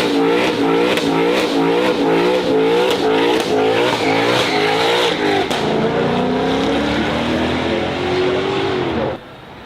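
Ford Mustang GTD's supercharged V8 revving hard, its note surging up and down about three times a second, then pulling up in a smoother rising run before cutting off sharply near the end.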